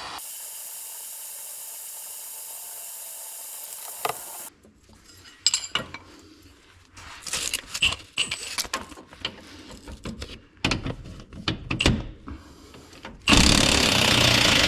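MAP gas torch hissing steadily as it heats a seized shock-mount bolt, shut off after about four seconds. Then scattered metallic clicks and knocks of tools on the mount, and a loud burst of noise for the last second or so.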